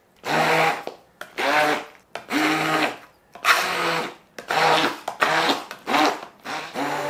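Handheld immersion blender puréeing thick mashed potatoes with cream and eggs, run in short bursts about once a second. The motor's pitch wavers within some bursts as the blades work through the thick mash.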